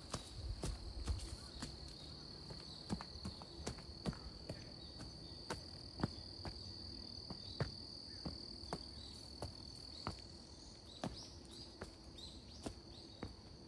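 Footsteps of a person walking, about two steps a second, over a steady high-pitched drone of insects.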